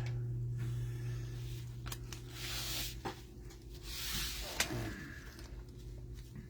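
Trading cards and plastic card sleeves being handled: soft sliding and rustling in two short spells, with a few light clicks, over a steady low hum.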